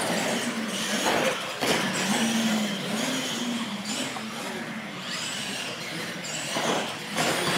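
Two radio-controlled solid-axle monster trucks racing flat out side by side, a steady rush of motor, drivetrain and tyre noise that starts abruptly at the launch, with a wavering drone through the middle.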